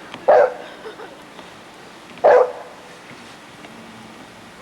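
A dog barking twice, two short sharp barks about two seconds apart.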